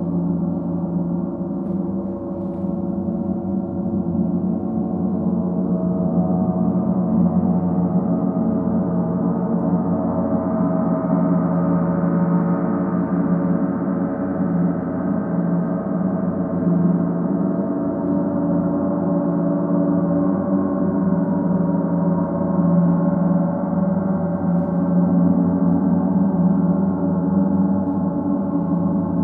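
Paiste planetary gongs played as a continuous, shimmering wash of many overlapping sustained tones with no separate strikes. The sound swells a little louder over the first several seconds and then holds.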